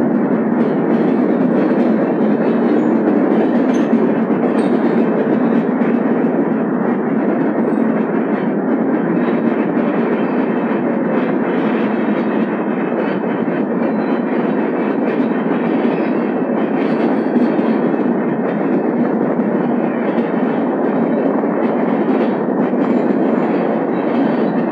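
Express train coaches running at speed through a rock tunnel, heard from an open coach doorway: a loud, steady din of wheels on rail, echoing off the tunnel walls.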